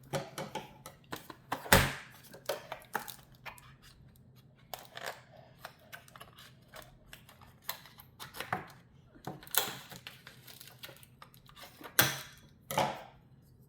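Irregular clicks, taps and rustles of small plastic pieces and packaging being handled and pried at, with a sharp knock about two seconds in and another near the end.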